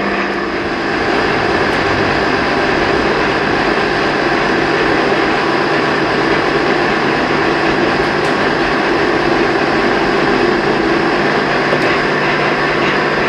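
Monarch 10EE lathe running steadily between single-point threading passes: an even mechanical hum with several steady whining tones.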